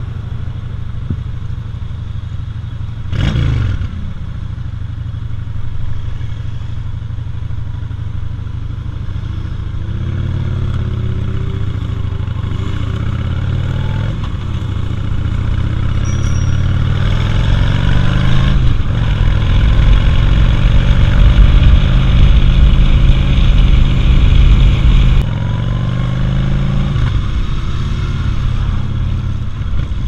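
Motorcycle engine heard from the rider's seat, pulling away and accelerating up through the gears, its pitch climbing several times with breaks between shifts, then easing off sharply near the end. A brief sharp sound with a quickly falling pitch cuts in about three seconds in.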